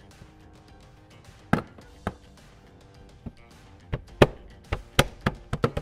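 Plastic B-pillar trim panel of a third-gen Toyota Tacoma being pressed and knocked back into place by hand, giving sharp plastic clicks and knocks as its clips seat. There are a few spaced knocks at first, then a quicker run of them in the last couple of seconds. Soft background music runs underneath.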